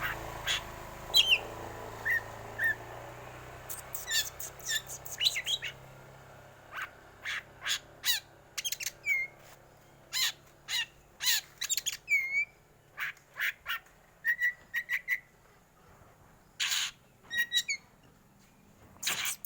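Black oriental magpie-robin (kacer hitam) calling: a quick, irregular series of short harsh, cough-like notes mixed with brief whistled notes, some rising or falling in pitch.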